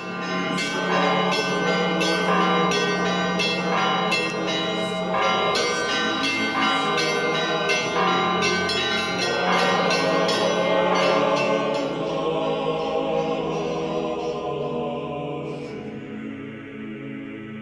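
Orthodox church bells ringing: a quick run of strikes on the smaller bells, about two a second, over a deeper bell's held hum. The strikes thin out and the ringing dies away near the end.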